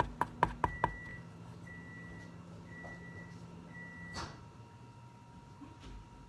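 Microwave oven: a quick run of sharp button clicks, then a low hum with four high beeps about a second apart. A click about four seconds in as the hum stops.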